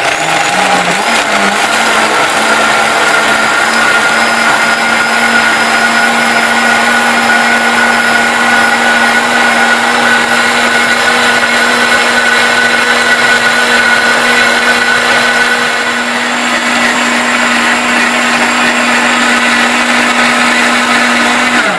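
Optimum 9200 high-speed blender with a 3 hp motor, running on high and blending corn, cashews and water into a hot soup. A loud, steady motor whine climbs to its full pitch in the first couple of seconds, holds, and stops abruptly near the end.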